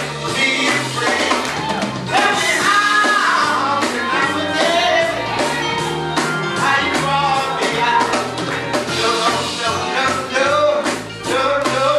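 Gospel song performed live: singing over a band with a steady beat and bass line.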